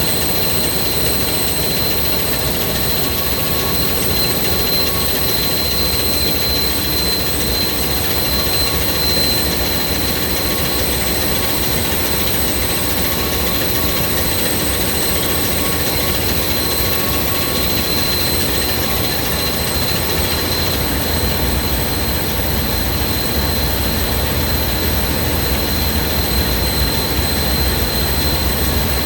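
A smoke detector's alarm sounding as one continuous high-pitched electronic tone, without beeping, during a sensor test. It sits over the loud steady drone of a ship's machinery running.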